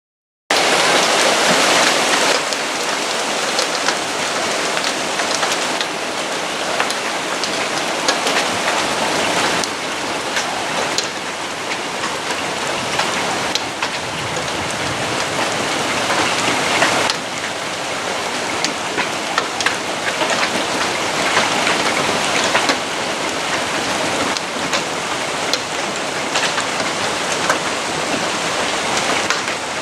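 Hail of pea to dime size falling steadily: a dense hiss with many sharp single hits of hailstones striking.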